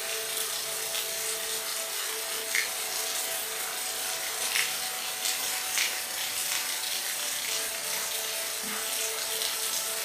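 Steady rain hiss with scattered sharper drop ticks, a few standing out clearly. Under it runs a faint steady hum of several tones.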